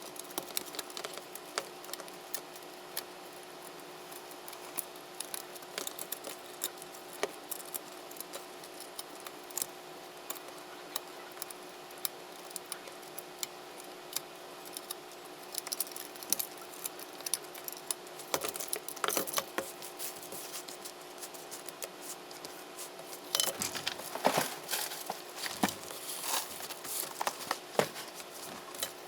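Small hand tools clicking, snipping and scraping on a MacBook Pro A1708 top case, in scattered irregular ticks that grow busier and louder near the end, over a steady faint hum.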